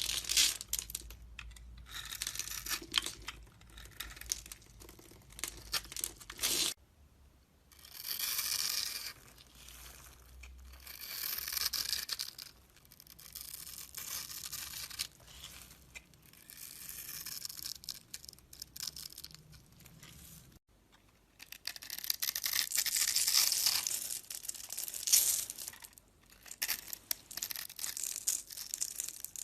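A blade carving a bar of soap: a run of scraping, shaving strokes of a second or two each, with crisp crackles and clicks between them.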